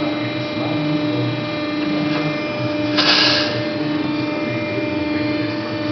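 Haco TSX CNC hydraulic shear running with a steady hum of several fixed tones from its pump, with a short, loud rush of noise about three seconds in.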